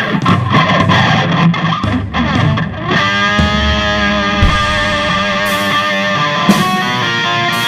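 Distorted electric guitar in a rock song: choppy riffing, then a sustained chord ringing out from about three seconds in.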